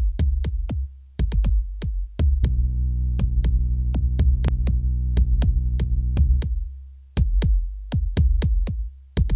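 Electronic background music: a fast drum-machine beat over a deep bass line that drops out briefly a few times.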